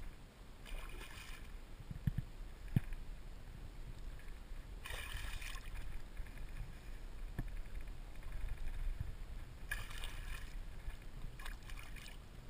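Small pike splashing at the water's surface in several short bursts as it is handled beside the angler's hand, over a low wind rumble on the microphone. Two sharp knocks come about two and three seconds in.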